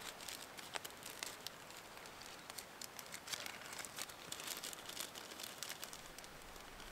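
Crinkling and rustling as hands handle charred-cloth tinder over a foil ground sheet: a stream of small, sharp crackles.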